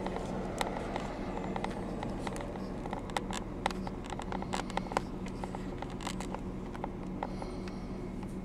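Steady low hum with many irregular sharp clicks and ticks over it.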